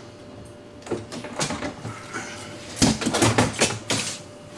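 Refrigerator freezer drawer being lifted off its slide rails and pulled out: a series of knocks and rattles, scattered at first and busiest about three seconds in.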